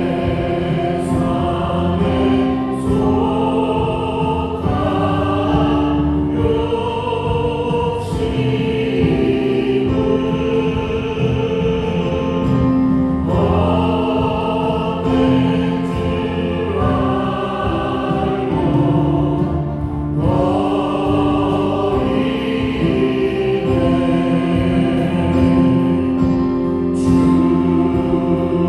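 Church worship band playing a slow hymn: a group of voices singing over a Yamaha Montage 8 synthesizer keyboard, electric bass guitar and a drum kit with occasional cymbal strokes.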